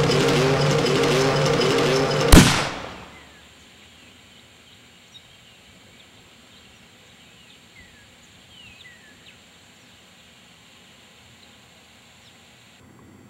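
A loud, rough sound with a wavering, repeating pattern ends in a single sharp bang about two seconds in that rings out briefly. Then quiet outdoor ambience with a few faint bird chirps.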